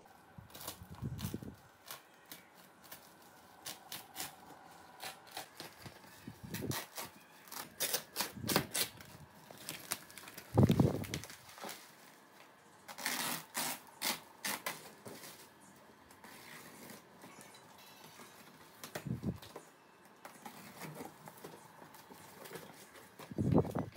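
Irregular clicks, taps and rustles of objects being handled, with a few low thumps; the loudest thump comes about eleven seconds in.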